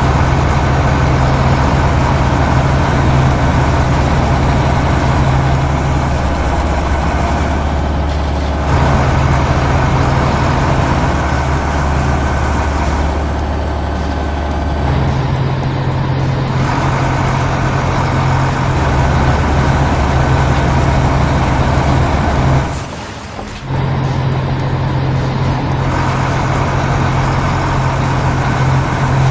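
Heavy vehicle engine running steadily, mixed with background music; the sound shifts in blocks and dips briefly about three-quarters of the way through.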